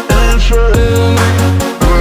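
Music with a heavy bass line and a steady beat.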